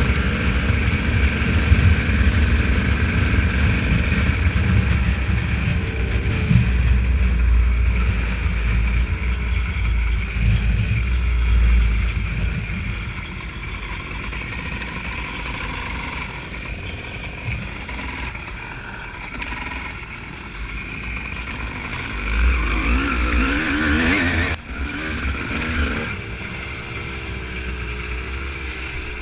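Honda CR250 two-stroke motocross bike being ridden off-road, its engine revving up and falling back as the throttle opens and closes, over a heavy low rumble. The engine gets somewhat quieter about halfway through.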